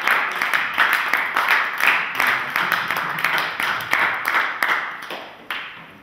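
Audience applauding, a dense patter of clapping that thins out and dies away near the end.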